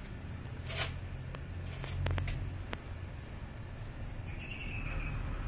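Several light clicks and taps over a steady low hum, with a faint high tone near the end.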